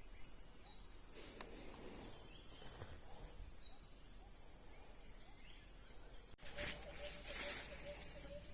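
Insects, such as crickets, calling in a steady high-pitched drone that breaks off for an instant about six seconds in.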